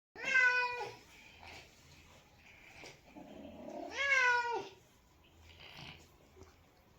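A domestic cat meowing twice, about four seconds apart, each meow under a second long and slightly rising then falling in pitch, with fainter noises in between.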